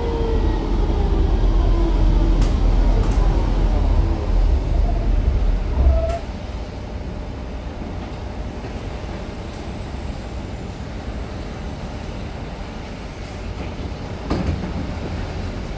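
Type R low-floor tram heard from inside, slowing down: a low rumble with a falling motor whine that stops about six seconds in. It then stands with a steady, quieter hum, and a few sharp clicks come near the end.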